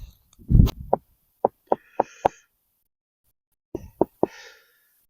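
A dull thump, then two clusters of sharp, short knocks, four and then three, before the sound cuts out to silence.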